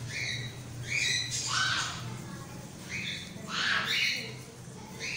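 A bird squawking in a string of short, harsh calls, over a steady low hum.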